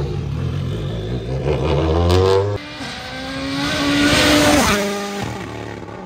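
Toyota GR Yaris Rally1 rally car's turbocharged four-cylinder engine, first running at low revs that rise and fall. After a sudden change about two and a half seconds in, the car comes up at speed and passes close by, its engine note dropping sharply in pitch as it goes away and fades.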